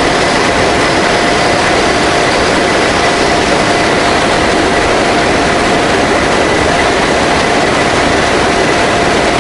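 Steady roar of an An-12 transport's four turboprop engines and the rushing slipstream at its open rear ramp, with two steady whining tones running through it.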